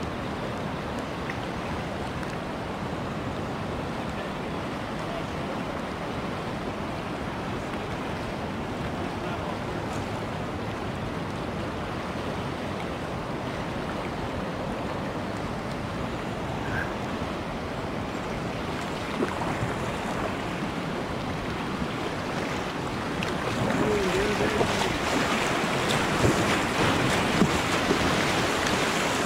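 River current rushing past a whitewater kayak, with wind buffeting the microphone. About three-quarters of the way through the water grows louder and splashier as the kayak runs into a rapid and waves wash over its bow.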